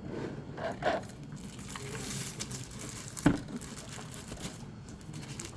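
Box packaging being handled: rustling and crinkling with scattered light knocks, and one sharp knock a little past three seconds in.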